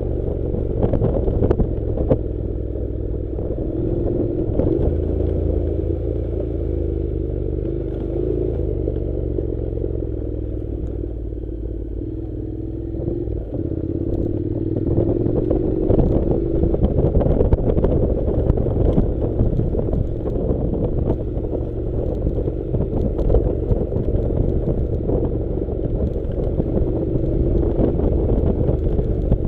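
Honda NC700 motorcycle's parallel-twin engine running while riding a rough dirt track, its pitch drifting up and down with the throttle, over constant clatter and knocks from the bike on the loose surface.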